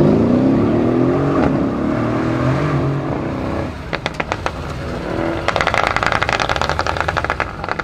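Mercedes-Benz CLS 63 AMG's V8 accelerating hard, the engine note rising, dropping once at an upshift and rising again. After that come a few sharp exhaust pops and then a fast string of crackles off the throttle, about two seconds long.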